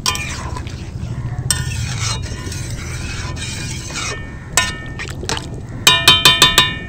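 Metal spoon stirring curry in a metal cooking pot: a clink, a couple of seconds of scraping and stirring, then two single clinks. Near the end comes a quick run of about seven loud ringing taps of metal on metal.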